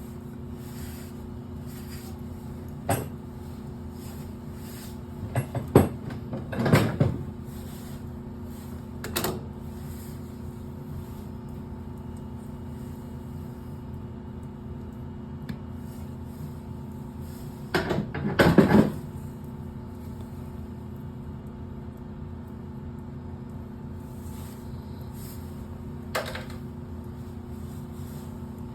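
Scattered clunks and rattles of parts and tools being handled during furnace work, loudest twice, about a third of the way in and again past the middle. Under them runs a steady hum with a few low tones.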